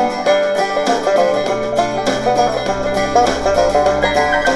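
Bluegrass-style music with a rapidly plucked banjo, played back through a speaker from a DIY FM stereo radio kit (ICStation GY18043) tuned to a home-made low-power FM station. A bass line comes in about a second and a half in.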